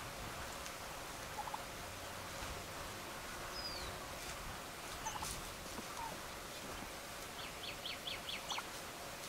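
Gould's wild turkey gobbling once near the end, a quick rattling run of notes lasting about a second. A few short high calls are heard earlier.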